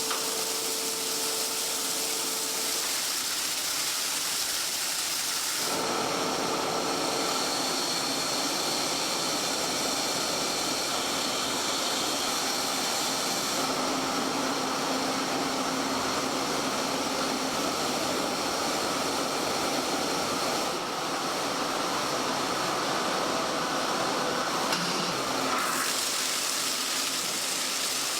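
Large meat-processing machinery running: a steady hiss with faint whining tones over it. The sound shifts in character a few times, about six, fourteen, twenty-one and twenty-six seconds in.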